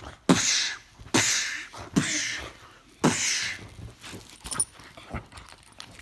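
A beagle letting out short, breathy bursts while being played with, four in a row about a second apart, each starting sharply and trailing off in a hiss.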